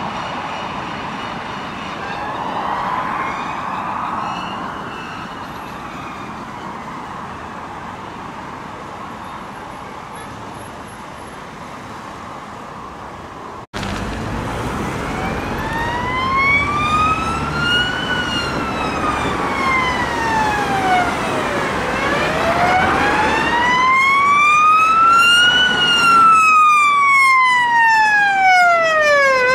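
Police car siren on a slow wail. Over road traffic it is faint at first, then after a sudden cut it comes in loud, rising and falling about every four seconds up and four down, and grows louder toward the end as the car comes close.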